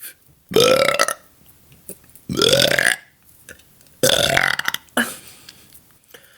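A woman belching loudly three times, each burp lasting well under a second and starting with a quick rise in pitch, about every second and a half to two seconds.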